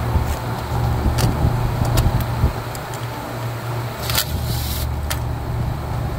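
Refrigeration condensing unit running with a steady low hum, its compressor back on a new contactor. Over it come a few sharp clicks and, about four seconds in, a short rattle, as the old burnt three-pole contactor is taken apart by hand.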